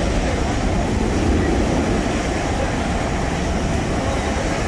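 Jet engine noise from a Boeing 737 on the runway: a steady, loud noise, heaviest in the low end.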